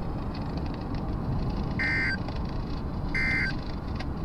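Two short, buzzy two-tone data bursts from a NOAA Weather Radio broadcast, each about a third of a second long and about a second apart, over radio hiss. Short bursts like these, in threes, are the SAME end-of-message code that closes an alert.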